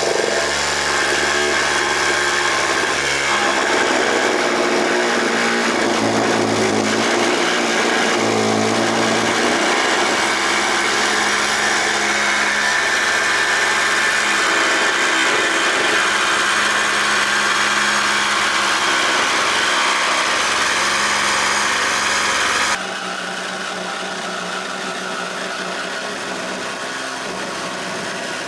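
Compressor-driven air cutting tool, run at just under 90 psi, cutting the snorkel hole through the Ford Ranger's front guard: a loud, steady noise of the air motor and the cutting. About three quarters of the way through it drops to a quieter steady level.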